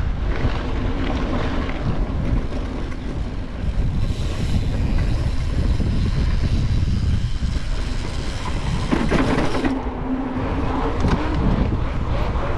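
Wind buffeting an action camera's microphone while a cross-country mountain bike is ridden at speed over grass and then onto tarmac, with tyre noise underneath. The hissy part of the noise drops away abruptly a little under ten seconds in, with a click around then.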